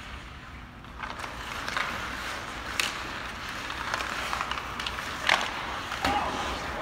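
Hockey play: skates scraping across the playing surface, with sharp clacks of sticks hitting the puck, the loudest about five seconds in.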